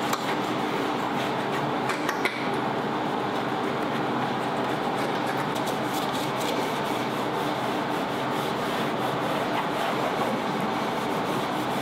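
Microfiber towel rubbing over the painted metal underside of a car bonnet, a steady rubbing as a spray ceramic sealant is worked into the paint.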